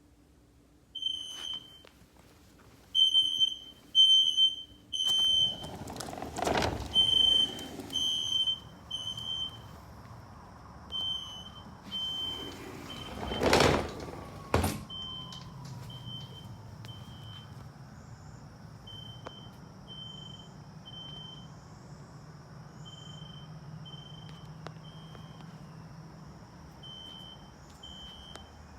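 Recorded System Sensor SpectrAlert Classic fire alarm horn (filtered DC) played through a tablet's speaker: short high-pitched beeps in groups of three, repeating about every four seconds. Loud knocks around six and around fourteen seconds in.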